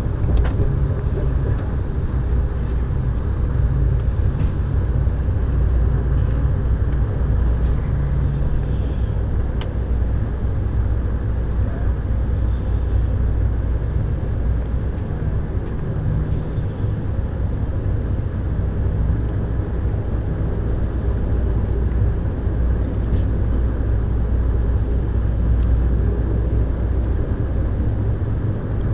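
Steady rumble of a moving Amtrak Superliner passenger car heard from inside the cabin: wheels and running gear on the rails, with a few faint ticks near the start.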